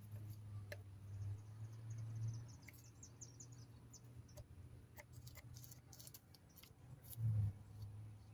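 Masking tape being pulled off the roll and pressed around a tire, giving faint crackling clicks, with a quick run of high ticks between about one and three seconds in. A low steady hum runs underneath.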